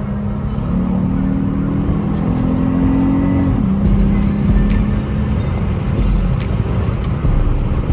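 Acura TL Type-S V6 running as the car drives, a steady engine and road rumble, with music playing at the same time: held low notes that step from one pitch to another, and sharp ticks in the second half.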